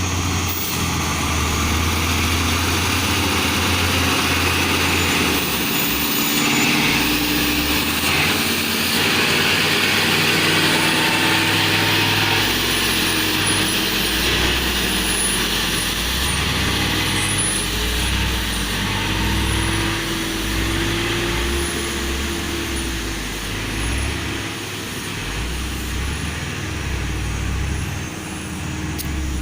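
Logging truck's diesel engine running hard under load as it climbs a hill, its low note shifting up and down several times.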